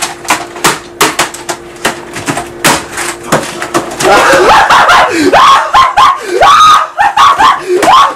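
A computer keyboard being pounded hard with the hands: a quick clattering run of key strikes. From about halfway a man is screaming in rage, his voice rising and falling in long cries. The whole track is boosted so loud that it distorts.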